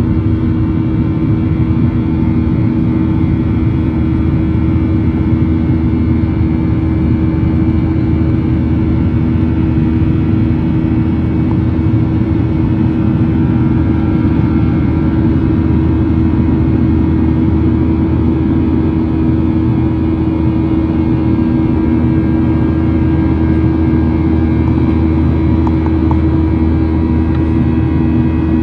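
Cabin noise of a Boeing 737-900ER's CFM56-7B turbofan engines at climb power, heard inside the cabin beside the wing: a loud, steady low drone with a constant hum tone running through it.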